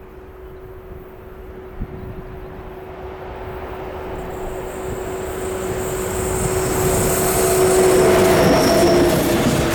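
Train approaching and growing steadily louder, with a steady humming tone throughout. High-pitched wheel squeal sets in over the last few seconds as it draws near.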